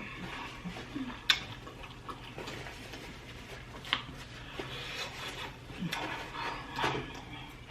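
Close-up eating sounds: spicy sauced prawns being chewed and handled, with wet, crackly noises and two sharp clicks, about a second in and about four seconds in.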